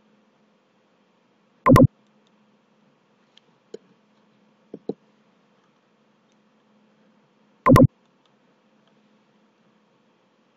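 Computer mouse clicking: two sharp, loud clicks about six seconds apart, with a few faint ticks between them, over a faint steady hum.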